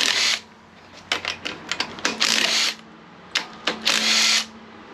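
Cordless impact driver hammering in three short bursts as it backs off the rocker arm bolts on a Ford small-block V8's cylinder heads, taking the tension off the roller-cam valve train. Short clicks come between the bursts.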